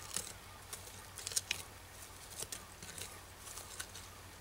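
A fixed-blade knife cutting the backstrap free from a deer carcass: quiet, irregular clicks and crackles, with a cluster about a second and a half in.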